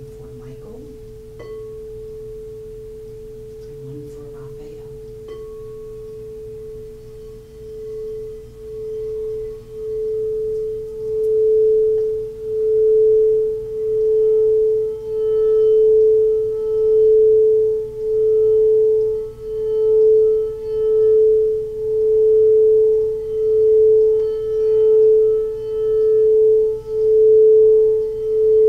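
Frosted quartz crystal singing bowl played by circling a mallet around its rim, giving one steady pure tone. Quiet at first, the tone swells from about seven seconds in, then keeps rising and falling in loudness about once a second.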